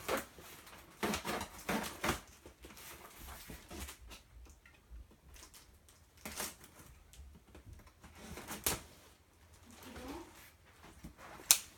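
A mailed package being opened by hand: scattered bursts of rustling and scraping packaging, with a few sharper knocks.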